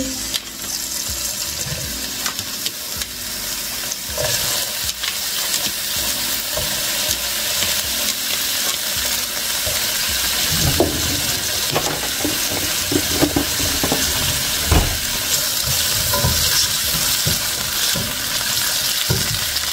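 Sliced bell peppers sizzling steadily in hot oil in a ceramic-coated pan, with a spatula scraping and knocking against the pan as they are stirred in the second half.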